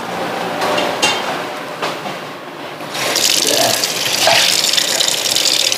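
Kitchen tap turned on about three seconds in, then running with a steady rush of water. Before it, a few knocks of a knife on a wooden chopping board.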